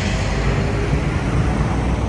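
A train passing close by: a loud, steady rumbling rush of noise.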